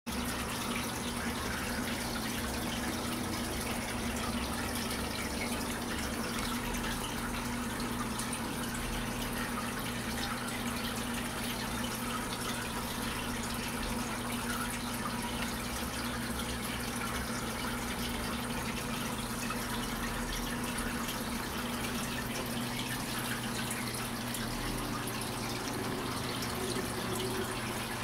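Aquarium filter running, its water falling steadily into the tank with a constant trickling splash and a steady low hum.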